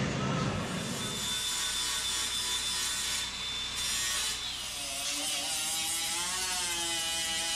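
Small handheld grinder grinding down fresh welds on a steel quarter-panel extension. Its high whine bends down about four and a half seconds in and then wavers up and down as it is pressed into the metal.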